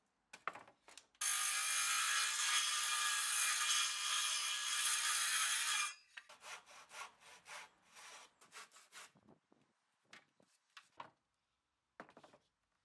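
Circular saw cutting through timber for about five seconds, stopping abruptly. A quick run of short irregular sawing strokes follows, then a few light knocks.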